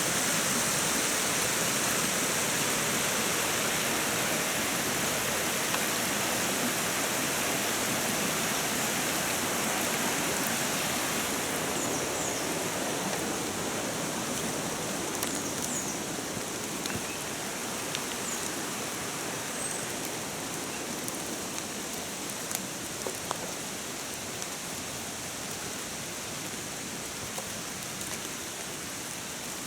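Rain falling onto a flowing river: a steady hiss of rain on the water over the rush of the current. It eases slightly, and individual drops tick more distinctly in the second half.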